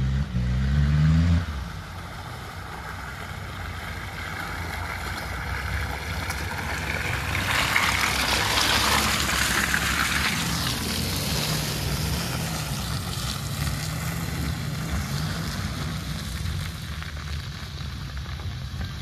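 A 4x4 SUV's engine running as it crawls along a muddy forest track. It grows louder as it approaches, passes close by about eight to ten seconds in with a rush of tyre and mud noise, then fades as it pulls away. A louder engine drone in the first second and a half cuts off abruptly.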